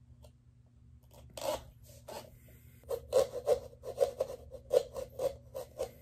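Small pumpkin-carving saw rasping back and forth through a pumpkin. First a few separate strokes, then from about halfway a quick run of about four strokes a second.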